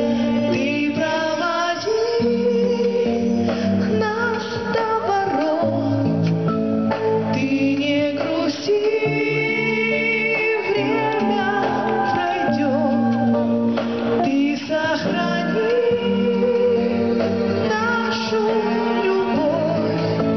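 A Russian-language pop song: a female voice singing over a backing track of sustained instruments.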